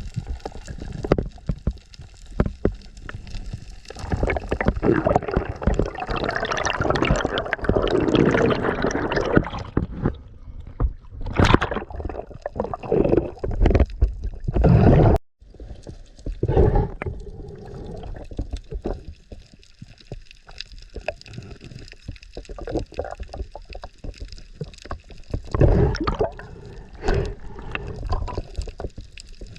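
Water sloshing and gurgling around a diving action camera, in irregular bursts, with a brief cut-out about halfway.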